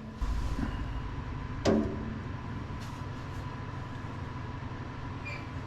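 Steady low background hum with a faint steady tone running through it, and one short voiced sound from a man, like a brief "hm", a little under two seconds in.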